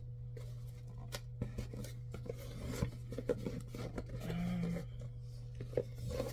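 Hands working at a cardboard box, with small scrapes, taps and rubbing as the sides and flaps are tried for an opening. A steady low hum runs underneath.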